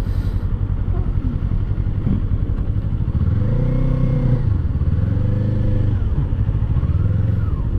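Kawasaki Eliminator 450 SE's parallel-twin engine running under way, its note rising and falling three times as the throttle is rolled on and off in traffic.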